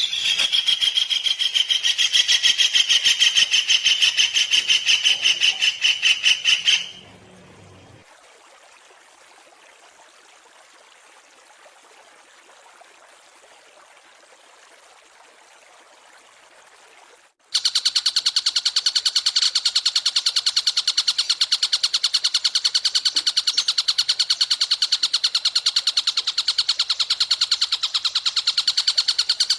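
Recorded songbird song used as masteran (training song for cage birds): a loud, rapid, even trill for about seven seconds, then only a faint hiss, then a second loud, rapid trill with several pitches at once starting a little past the middle and running on.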